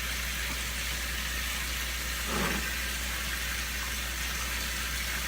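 Kitchen tap running steadily into the sink, an even hiss of water, with one brief soft sound about two and a half seconds in.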